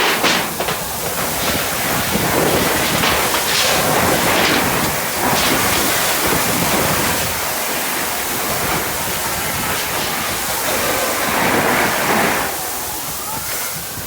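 Fire hose jet spraying water: a steady rushing hiss of water and spray that swells and eases, dropping off a little shortly before the end.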